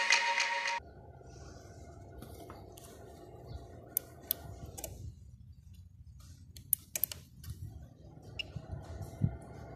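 Electronic music cuts off within the first second, leaving a quiet low hum with scattered sharp clicks: the Jinbei MSN 800 studio flash's rocker power switch and control buttons being pressed.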